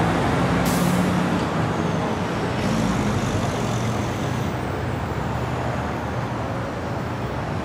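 Street traffic noise: motor vehicles running by in a steady wash of engine and tyre sound, with a short high hiss about a second in.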